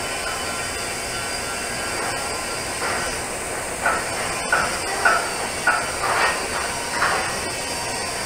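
TIG welding arc hissing steadily while filler rod is fed into the pipe weld. From about four seconds in, short brighter surges come roughly every half second.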